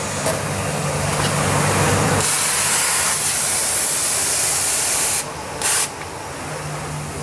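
Biesse Rover 23 CNC machining center running: a loud steady hiss of air over a low hum. The hiss grows stronger about two seconds in, drops about five seconds in, and gives one short burst just after.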